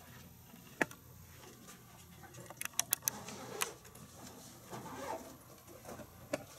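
Scattered sharp clicks and light taps of small objects being handled on a desk: one click about a second in, then a quick cluster of clicks around three seconds and another just after.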